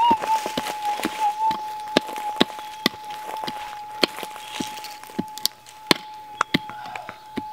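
A small hand pick striking and scraping into hard gravelly soil in quick, irregular blows, about two a second. Under it runs a metal detector's steady high-pitched tone.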